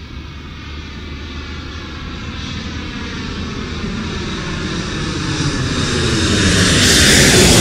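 Logo-animation sound effect: a rushing, jet-like rumble that swells steadily louder, at its loudest near the end.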